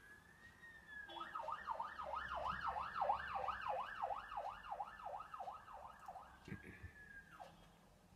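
Emergency vehicle siren: a rising wail that switches about a second in to a fast yelp of roughly two to three sweeps a second, then returns to a held wail that drops away near the end.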